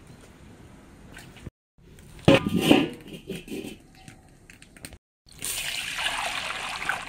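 A large iron wok clatters as it is set down on a stove about two seconds in. Near the end, water pours steadily into the wok in a continuous splashing rush.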